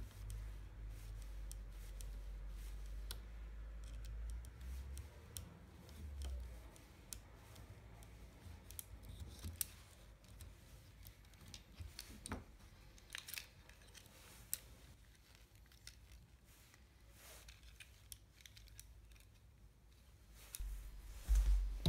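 Scattered small clicks and scrapes of plastic robot-arm parts being handled and fastened, with screws turned by a small hex key. A low rumble runs through the first several seconds.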